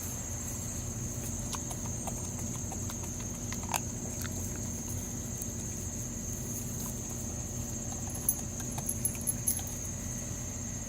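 Crickets chirping in a steady high drone, with a few scattered faint clicks and taps about a third of the way in and again near the end.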